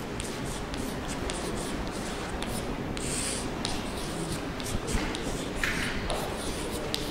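Chalk writing on a blackboard: a string of short scratches and taps as letters are written by hand, with longer scrapes about three seconds in and again near six seconds.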